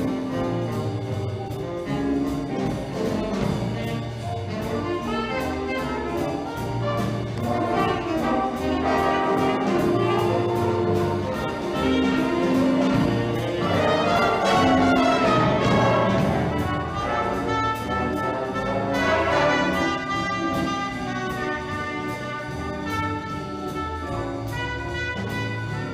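A brass-led wind band playing, with a steady beat and a louder passage about halfway through.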